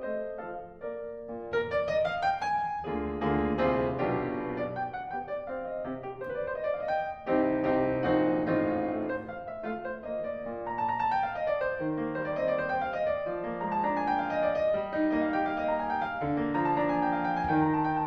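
Background piano music, a melody of notes played over chords.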